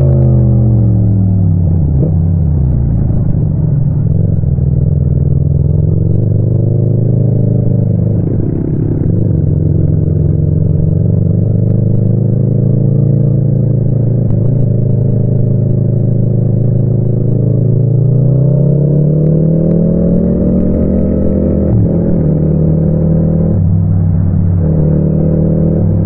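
Yamaha MT-07's 689 cc parallel-twin engine running under way. Its revs drop in the first couple of seconds, hold fairly steady through the middle, and climb again about two-thirds of the way through.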